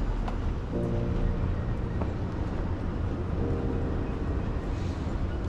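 Busy shopping-street ambience: a steady low rumble, with three short held tones of about a second each rising above it.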